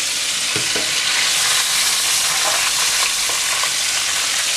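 Battered chicken deep-frying in hot oil, a steady loud sizzle, with a couple of light clicks.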